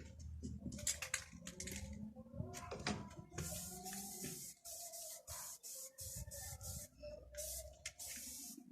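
A few clicks and handling knocks, then from about three seconds in a series of short hissing sprays, one after another with brief gaps.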